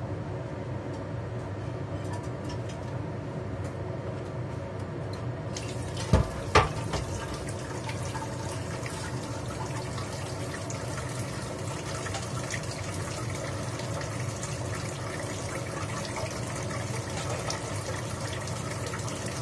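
Kitchen tap running into a stainless steel sink in a steady stream, the hiss of the water growing fuller about five seconds in. Two sharp clanks come soon after.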